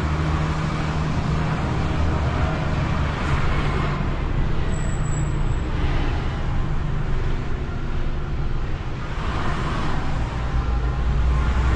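Heavy recovery truck's diesel engine running steadily under load while towing a loaded dustcart, with a deep hum and road noise.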